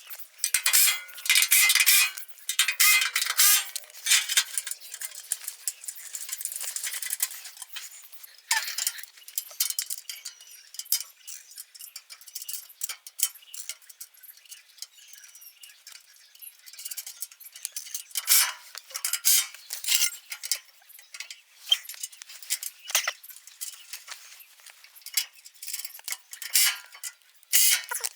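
Metal parts and tools clinking and rattling in irregular bursts, with quieter stretches in between.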